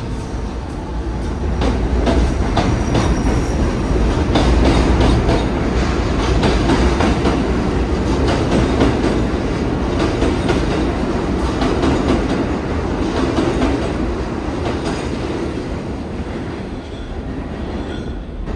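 An R62A subway train on the 1 line pulling out of the platform, a loud steady rumble with wheels clicking over rail joints, swelling over the first few seconds and fading away near the end as the last car leaves.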